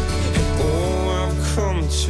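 Background pop song over a steady bass, with a sung line sliding in pitch in the second half.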